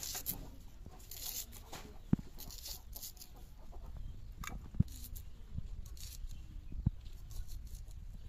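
A red onion being sliced by hand against an upright bonti blade: repeated crisp tearing and rustling of the onion flesh and papery skin, with three sharp knocks spaced a couple of seconds apart.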